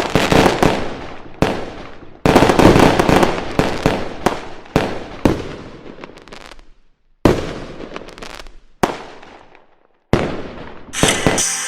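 Fireworks going off: a string of sharp bangs, each fading out over a second or so, in several stretches separated by brief silences.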